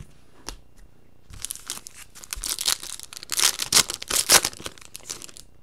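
Foil wrapper of a 2015 Topps Chrome baseball card pack being torn open and crinkled by hand: a crackling rustle that starts about a second in, comes in bursts and is loudest shortly before it stops.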